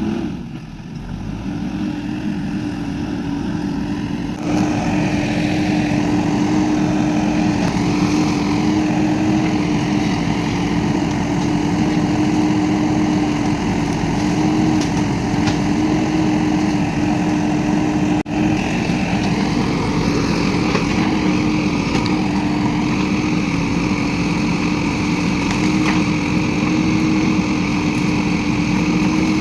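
An engine running steadily under load, with a constant hum. It gets louder and fuller about four and a half seconds in, with a brief dip in level about halfway through.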